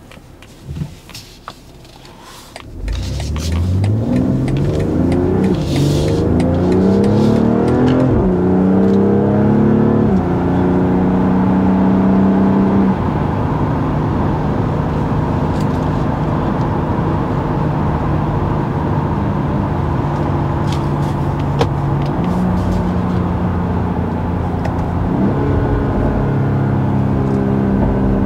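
2021 BMW X3 M40i's 3.0-litre twin-scroll turbocharged straight-six with its stock exhaust, pulling away hard about three seconds in. The engine climbs in pitch through the gears, dropping at each quick upshift, then settles to a steady cruise and picks up a little again near the end.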